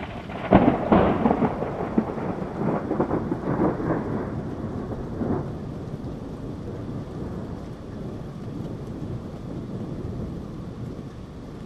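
Thunderclap: sharp cracks about half a second in, then rumbling that fades over the next five seconds, with steady rain underneath.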